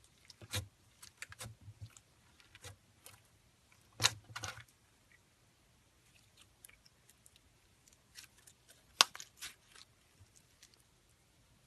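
Slime being squished and poked by hand, giving irregular clusters of sharp pops and crackles, with two louder pops about a third of the way in and about three quarters of the way in.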